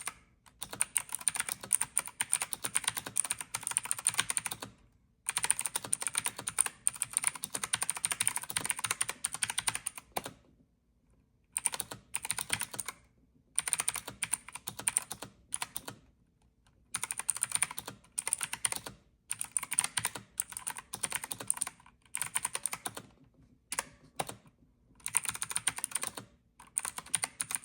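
Rapid typing on a mechanical keyboard with clicky blue switches, in bursts of a few seconds broken by short pauses. Each keystroke gives a sharp click.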